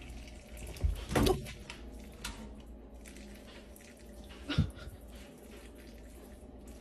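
A pet's short vocal calls: a pair about a second in and another about four and a half seconds in, the last one falling in pitch.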